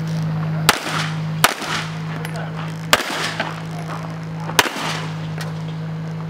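Four pistol shots from a competition handgun, fired at an unhurried, uneven pace, the gaps lengthening from under a second to about a second and a half. A steady low hum runs underneath.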